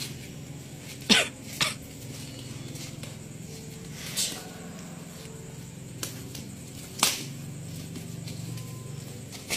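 Barefoot martial-arts sparring: a handful of short, sharp sounds of strikes and forced exhalations, the loudest about a second in and again near seven seconds, over a steady low hum.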